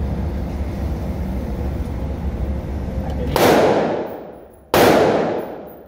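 Two shots from a Glock 19 9mm pistol in a folding full-concealment frame, about a second and a half apart, a little over three seconds in. Each shot rings out and fades over about a second.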